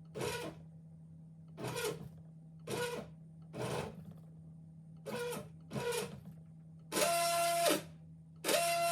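Stepper motors of a 3D-printed SCARA robot arm making a series of moves over a steady low hum. There are six brief buzzes, then two longer moves in which the pitch rises to a steady whine and falls away again.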